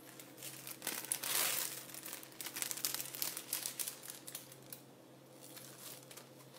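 Thin plastic jewelry packaging crinkling and rustling as it is handled, with small clicks. The crinkling is loudest in the first two seconds and thins out after that.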